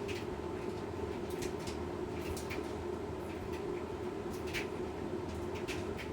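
Washing machine running with a steady motor hum and drum drone, with irregular light clicks and ticks over it.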